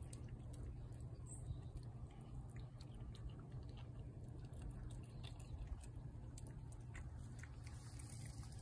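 A cat eating wet food: faint, scattered chewing and lapping clicks over a steady low rumble.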